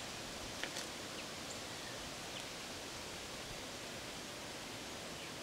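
Steady outdoor background noise, a soft rustling hiss, with a few short faint high chirps in the first couple of seconds.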